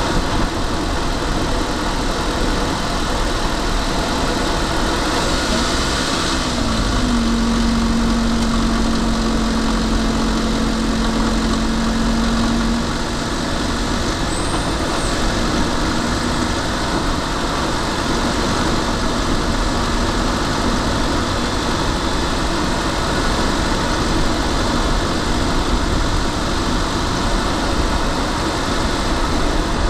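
A car driving along, heard from inside the cabin: steady road and engine noise. A low steady hum rises in about six seconds in and fades away later.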